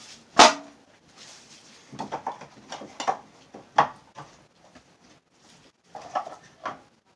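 Handling noise: one loud knock about half a second in, then scattered clicks and clatters of snuff cans being picked through on a wooden wall shelf.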